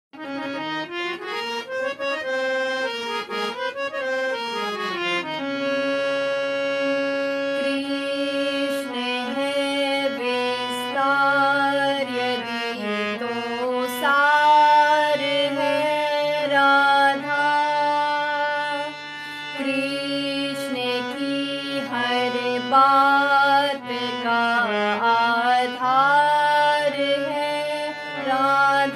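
Harmonium playing a Hindu devotional bhajan melody in sustained reedy chords, with a woman's voice singing along.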